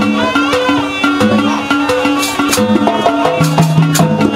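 Jaranan Buto accompaniment playing: a traditional ensemble with held, ringing pitched tones forming a melody over frequent drum and cymbal-like strokes.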